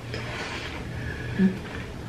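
Close-miked mouth sounds of eating: chewing, with a brief hummed 'mm' about one and a half seconds in, over a low steady hum.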